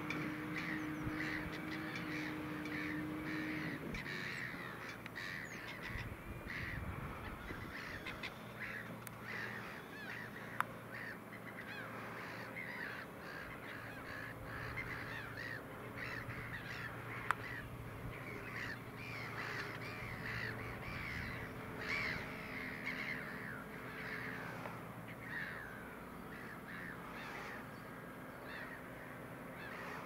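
A flock of birds calling over and over with harsh, crow-like caws, above the faint steady running of a New Holland T7.245 tractor's engine as it works a Lemken reversible plough.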